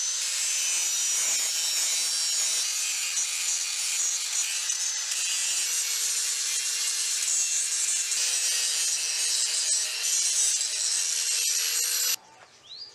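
Continuous scraping and rubbing of a tool working on wood or metal, at a steady level with a faint steady hum underneath. It cuts out suddenly about twelve seconds in, leaving a couple of faint squeaks.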